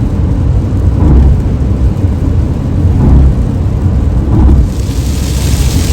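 Low rumble of wind and road noise on the microphone in a moving car, swelling in gusts about a second, three seconds and four and a half seconds in. A steady hiss comes up near the end.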